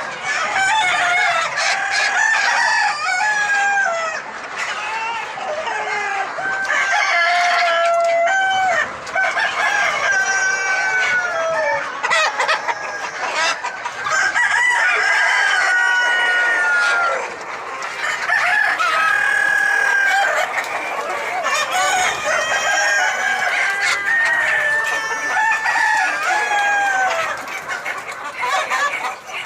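A flock of desi chickens: several roosters crowing over one another while hens cluck, in a continuous, overlapping chorus.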